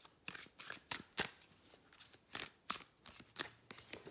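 A deck of tarot cards shuffled by hand: an irregular run of quick, sharp card strokes, with a short pause after about a second, stopping just before the end.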